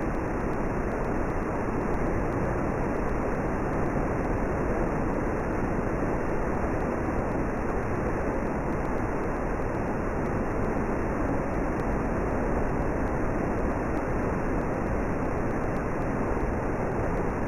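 Obrovský waterfall, a mountain waterfall pouring down a rock gorge, making a steady, even rush of falling water.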